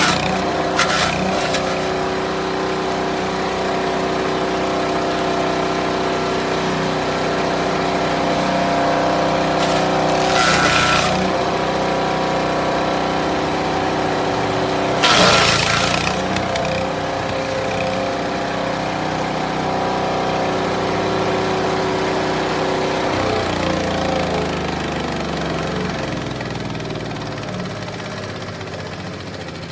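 Gas engine of a Landworks wood chipper-shredder running steadily, with short loud crunching bursts about 1, 10 and 15 seconds in as branches are fed through the rotor. About three-quarters of the way through, the engine note drops and the sound gets quieter as the machine slows.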